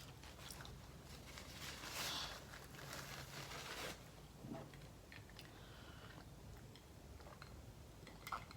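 Close-up chewing of a soft, saucy Subway turkey sub with lettuce and cucumber: quiet wet mouth sounds, denser and noisier for a couple of seconds in the middle, then a few small smacks.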